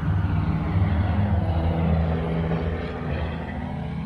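Engine of a small open utility vehicle running steadily as it drives along, a low drone that eases off over the last second or two.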